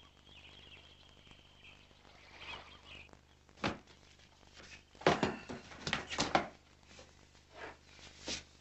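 Things being handled and lifted out of a cardboard box: a quick series of knocks and rustles, thickest around the middle.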